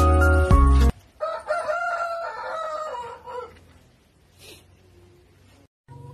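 Background music cuts off about a second in. A rooster then crows once, a long call that falls in pitch at the end.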